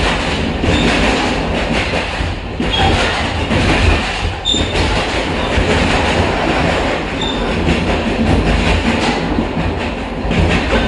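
Old metal train running at speed on the tracks: a steady, loud rumble and rattle of wheels and cars, with a few short high squeals of the wheels.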